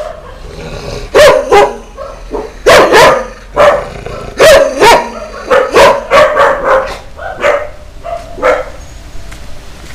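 A dog barking loudly and repeatedly at close range, about a dozen sharp barks in quick, uneven succession that thin out after about seven seconds.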